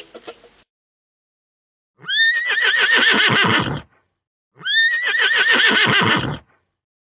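Horse whinnying twice, each a high, quavering neigh of about two seconds that wavers and slowly drops in pitch, with a short gap between the two. The end of a ukulele tune fades out just before.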